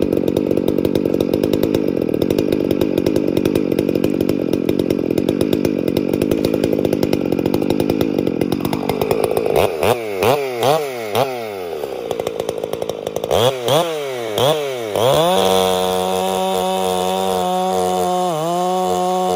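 Ported Husqvarna 266 two-stroke chainsaw idling, then blipped up and down in two quick groups of revs, then held at full throttle as the chain cuts into a log, with one brief dip in revs near the end. The saw is running a little rich.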